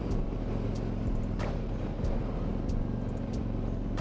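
Harley-Davidson Freewheeler trike's Milwaukee-Eight 114 V-twin running steadily while under way, over a constant rush of road and wind noise.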